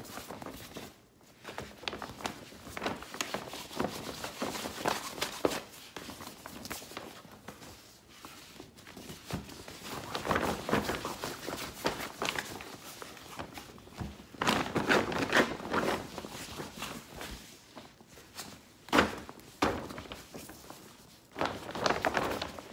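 Reusable shopping bags being handled and turned over with gloved hands: irregular fabric rustling and flapping with scattered light taps and thumps, and several louder bursts of rustling.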